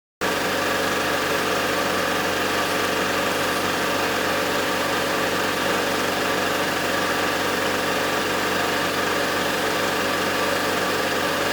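Belt sander with an 80-grit belt running steadily: an even motor hum with hiss, no change in speed.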